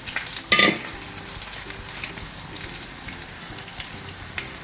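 Seer-fish pieces frying in oil: a steady sizzle with light crackles. A short clank about half a second in is the loudest sound.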